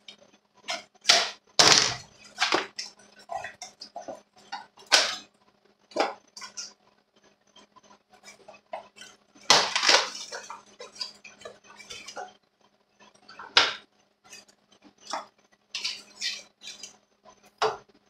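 Metal grinder parts and hand tools clinking and clattering on a steel workbench top, handled in irregular knocks and scrapes, loudest about two seconds in and again around ten seconds in.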